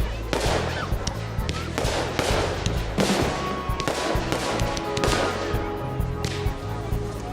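Fireworks bursting and crackling, a bang about every second, each trailing off in a crackling fade. Music plays underneath.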